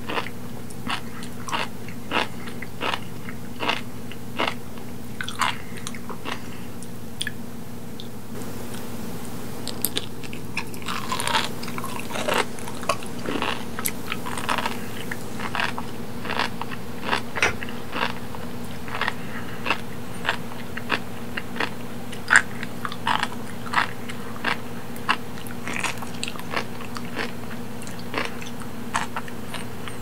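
Sea grapes (umibudo seaweed) chewed close to the microphone, their small beads popping in short, irregular crunchy crackles that come thicker after about ten seconds.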